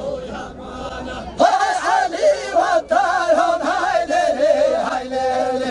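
A man singing a Kurdish halay dance song with music, in a loud, wavering voice that comes in about a second and a half in.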